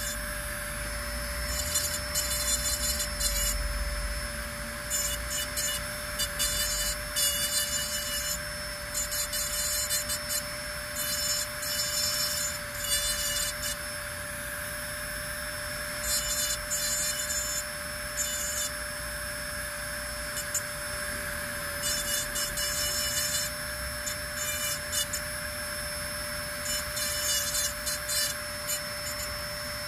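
Dental lab handpiece running with a steady whine while its bur grinds the occlusal grooves of a porcelain upper-molar crown. The cutting comes in short, irregular strokes, with a couple of brief pauses.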